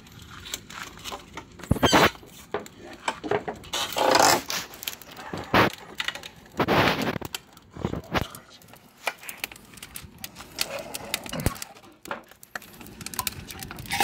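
Wood fire crackling and popping in a firebrick wood-fired oven: many sharp irregular snaps, with a few louder noisy bursts about 2, 4 and 7 seconds in.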